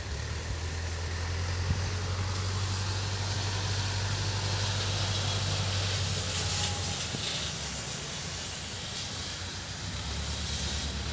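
A tractor mowing grass, its engine heard from a distance as a steady low drone. The drone fades about two-thirds of the way through and comes back near the end.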